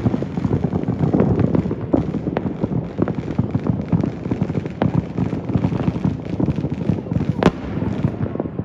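Many distant fireworks and firecrackers going off at once, a dense, continuous crackle of pops and booms, with one sharper bang about seven and a half seconds in.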